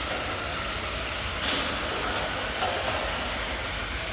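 Small battery-powered 1/16-scale Jada RC cars running on a tiled floor: a steady whir of their electric motors and gears with tyre noise.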